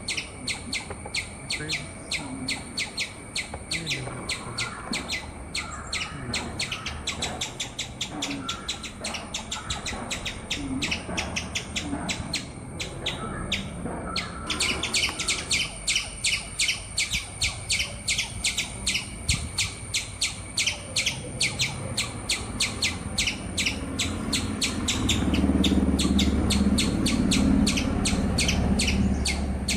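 A bird calling in a fast, even series of short high chirps, getting louder about halfway through, with a low rumble near the end.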